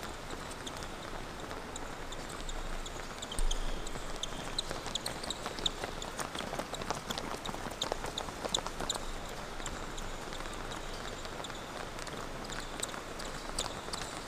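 Many rubber-soled sneakers pounding and squeaking on an indoor court floor as a group of players jogs. There are quick footfalls, short high squeaks that come thickest in the middle, and a bump about three and a half seconds in.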